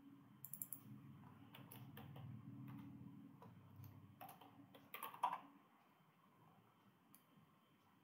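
Faint typing on a computer keyboard: an uneven run of key clicks, the loudest a little past the middle, then the typing stops. A faint low hum lies under the first part.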